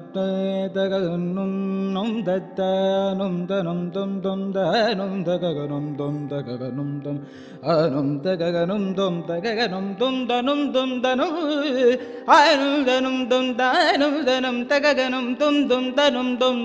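Male Carnatic vocalist singing a wordless raga alapana in Vrindavana Saranga, with long held notes and quick oscillating ornaments that grow denser and higher after about twelve seconds, over a steady drone from an electronic tanpura box.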